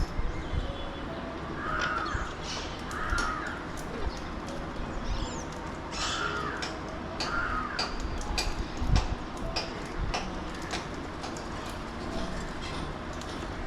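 Harsh bird calls: two pairs of short, rasping calls, the pairs a few seconds apart, among many short sharp clicks and faint chirps.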